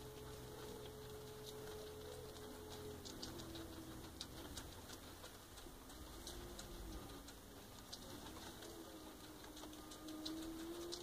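Guinea pig chewing hay and plant leaves: faint, irregular crisp clicks. Under them a faint held tone wavers, dropping slightly in pitch about three seconds in.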